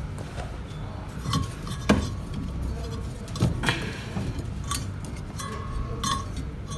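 Scattered metallic clinks and taps, about six in all, of tools working on the washing machine's motor mounting while the motor is set for belt tension, over a low steady background hum.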